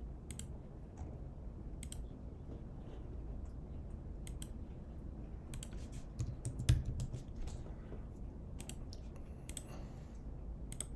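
Computer mouse clicks and keyboard key presses, scattered and irregular, over a low steady hum. A brief low thump about six to seven seconds in.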